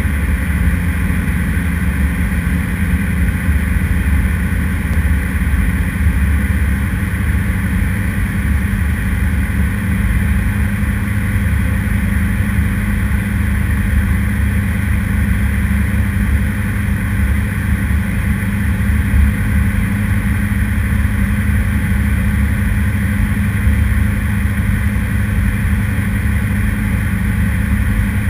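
Diamond DA40 light aircraft's engine and propeller droning steadily in cruise-like flight, heard from inside the cockpit, its pitch holding level throughout.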